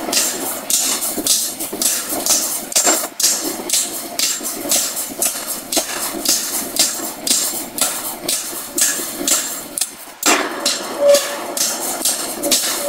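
Open-die forging hammer striking a red-hot steel bar, drawing it down, in a fast, even run of about two to three blows a second. The blows break off briefly about ten seconds in, then start again.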